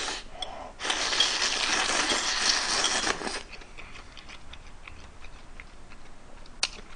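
A long slurp of ramen noodles and broth straight from the bowl, lasting about two and a half seconds, followed by quieter chewing with small mouth clicks.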